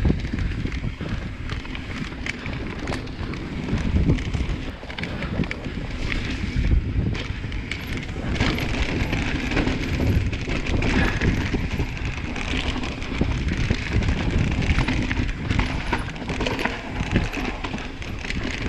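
Mountain bike being ridden along a dirt trail: tyres rolling over the ground with frequent clatter and knocks from the bike, and wind rumbling on the microphone.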